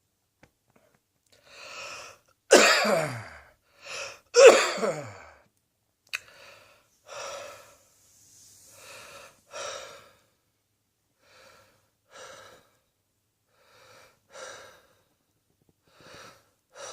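A person coughing hard twice, each cough trailing off with a falling pitch, then breathing heavily with a breath about every two seconds.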